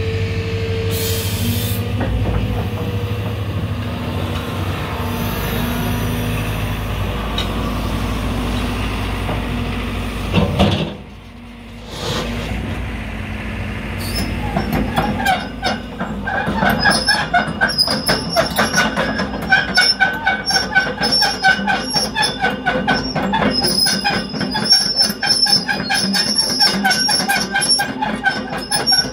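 JCB JS220X tracked excavator: its diesel engine runs steadily. After a short break about eleven seconds in, its steel tracks clatter rapidly and squeal as it travels.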